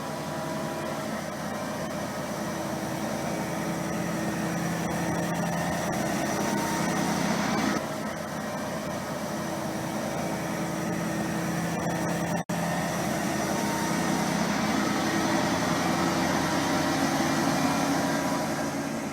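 Heavy diesel engine running steadily, used as the engine sound of a mobile crane. Its note shifts about eight seconds in, and the sound cuts out for an instant about twelve seconds in.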